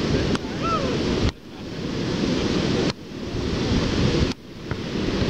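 Wind buffeting the microphone over the wash of ocean surf. The wind noise drops out suddenly three times, about one, three and four seconds in, and builds back up after each drop.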